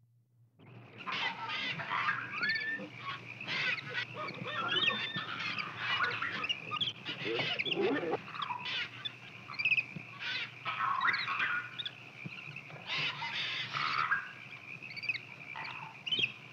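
Macaque monkeys calling: many short squeaks and squeals, rising and falling in pitch, one after another, over a faint steady high tone. The calls start about half a second in.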